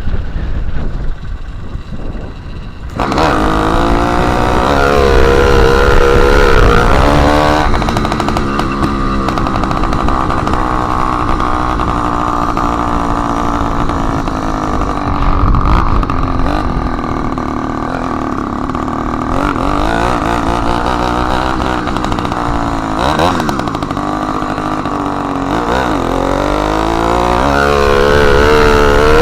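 Motorized bicycle engine running loud with the exhaust tip removed, revving up and down while riding. It is quieter for the first few seconds, then opens up sharply about three seconds in.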